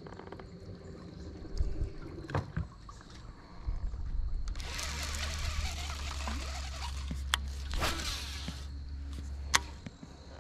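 An electric trolling motor runs with a steady low hum for about five seconds in the middle, with water churning and hissing from the propeller over most of that stretch. A few sharp clicks come on either side.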